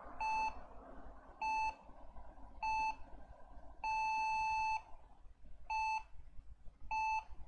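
Lenovo ThinkCentre desktop's internal speaker sounding a power-on beep pattern: three short beeps, one long beep, then two short beeps, all on the same steady tone. It is an error code from the startup self-test, signalling that the computer is failing to boot.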